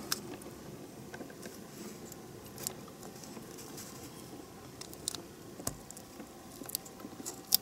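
Faint handling of a wiring plug: a few light clicks as a small spade terminal is worked back into its plastic connector housing, the sharpest click near the end.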